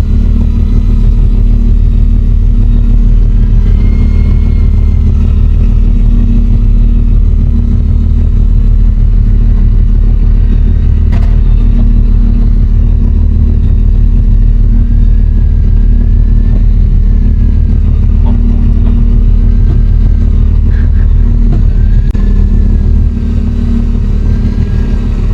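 Fishing boat's engine running steadily, a loud, even low drone with faint wavering higher tones over it.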